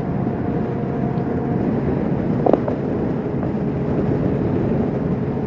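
Kawasaki Vulcan S 650's parallel-twin engine running steadily at road speed under a rush of wind noise, with one short knock about two and a half seconds in.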